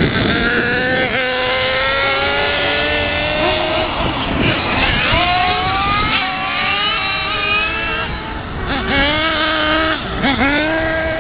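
Engines of two or more radio-controlled model race cars running at high pitch, each rising and falling as the cars speed up and slow down around the course.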